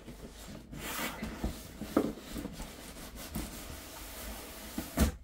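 Cardboard box being opened: flaps and packaging rubbing and scraping against each other, with a couple of sharp knocks.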